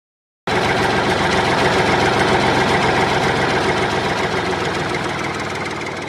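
Excavator engine running steadily at idle, with a fine rapid pulsing. It starts abruptly about half a second in and slowly fades toward the end.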